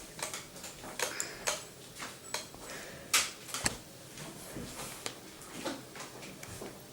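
Small plastic toy pieces and cardboard packaging being handled: scattered light clicks and rustles, the sharpest a little after three seconds in.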